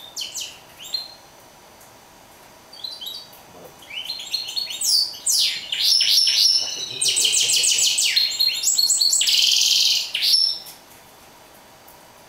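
Caged mulet, a canary crossed with a wild finch, singing: a short burst of chirps, a pause of about two seconds, then a long run of rapid falling whistled notes and fast trills that ends in a harsh buzzy phrase about ten and a half seconds in.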